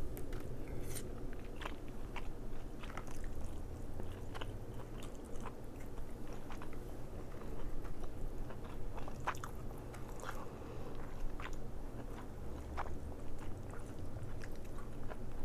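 A person chewing and biting crab meat, close to the microphone, with irregular sharp mouth clicks and smacks.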